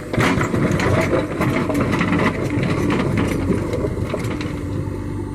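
JCB backhoe loader's diesel engine running steadily, with a dense clatter of short knocks and rattles over it.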